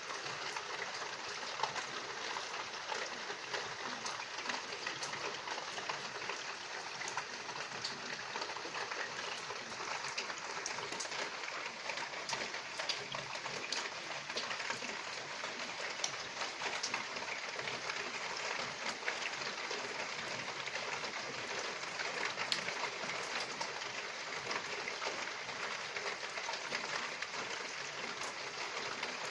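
Steady rain falling: a continuous hiss with many small drop ticks scattered through it.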